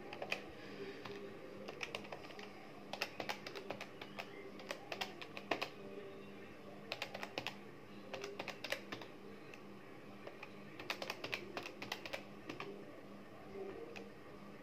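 Calculator keys pressed in quick runs of several taps with short pauses between runs, working out overhead shares, over a faint steady hum.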